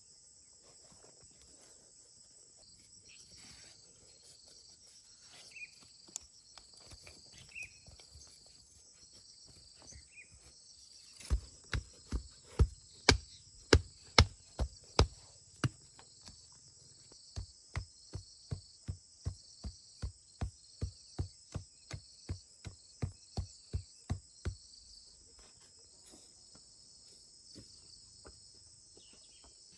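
Steady high-pitched insect chorus, likely crickets or cicadas. About eleven seconds in, a run of regular knocks starts, two or three a second, heavier at first and then lighter, and stops after about thirteen seconds.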